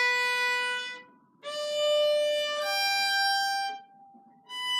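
Solo violin playing long sustained bowed notes, the pitch stepping upward from note to note, with short breaks between strokes about a second in and again near the end.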